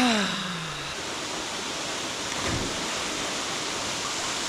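A man's voice gives a drawn-out cry that falls in pitch during the first second, then the steady rush of a small waterfall pouring into a rock pool.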